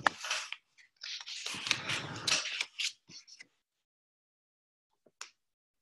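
Marker pen scratching across paper in a run of short strokes as an answer is written out and boxed.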